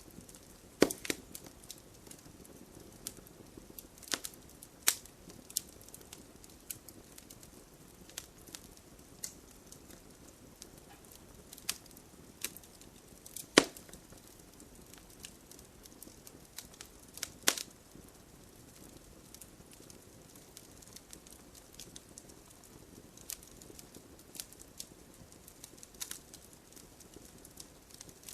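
Wood campfire crackling: irregular sharp pops and snaps from the burning wood over a low steady hiss, with louder cracks about a second in, near the middle and around two-thirds through.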